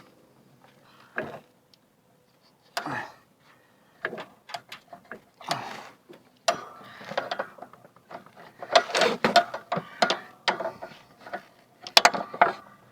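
Irregular metal clicks, clanks and knocks from a lawn tractor's mower deck hardware being worked loose by hand, busiest in the last few seconds.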